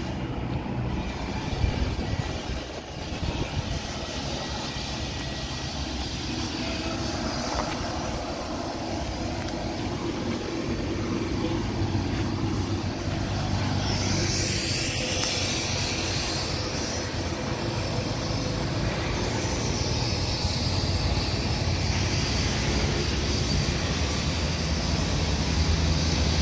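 Steady rumble of road traffic, with a hiss that grows louder about halfway through.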